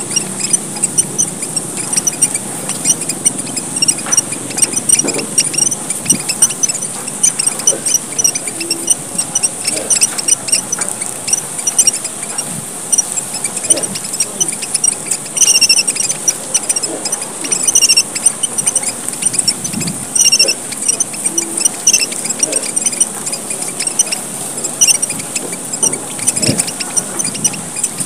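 Emprit merah papua (Papuan red finches) calling in a busy 'gocar' chatter: a continuous stream of thin, high chips, with now and then a louder short run of chirps.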